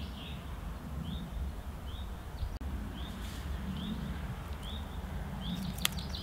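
A small bird calling outdoors: a string of short, high, upward-sweeping chirps, repeated about every half second to second, over a low steady rumble. A sharp click sounds near the end.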